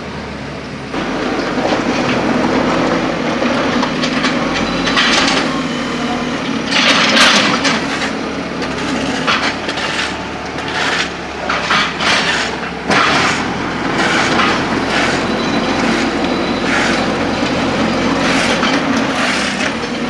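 Mud and silt being scraped off the road surface in repeated rough strokes, over the steady hum of an engine running.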